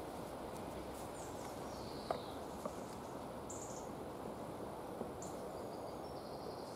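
Outdoor ambience: a steady low hiss with a few faint, short high chirps now and then, and two soft taps about two seconds in.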